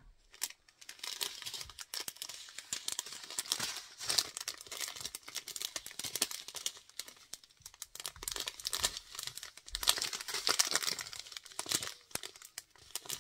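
Clear plastic bags of diamond-painting drills crinkling as they are handled and folded: a dense, irregular crackle of many small clicks.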